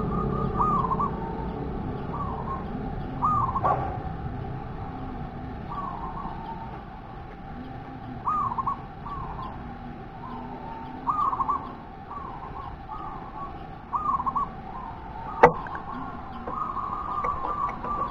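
Zebra dove (perkutut) cooing: a fast rolling run of short notes at the start, then short arching coos in spaced groups every second or two, and a faster rolling run again near the end. A single sharp click about fifteen seconds in.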